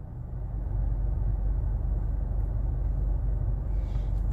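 Steady low rumble inside a car's cabin while the car idles, stopped in traffic.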